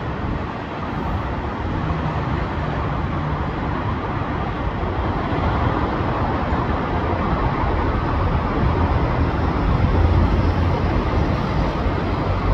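Steady city traffic noise: a continuous hiss and rumble of passing vehicles, growing a little louder in the second half.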